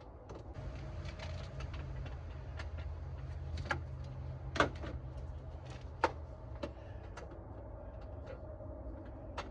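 Scattered metal clicks and clinks of a ratchet, extension and hold-down hardware being worked at a car battery, with two sharper knocks in the middle, over a steady low hum.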